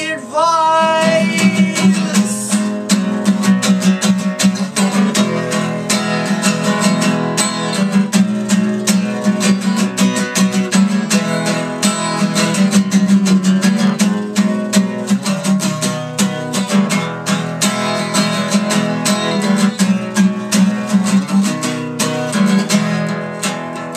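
Acoustic guitar strummed steadily in an instrumental break, right after a sung line ends on a held word about two seconds in.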